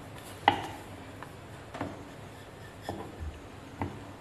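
Wooden rolling pin rolling chapati dough on a round wooden board, with sharp wooden knocks every second or so, the loudest about half a second in.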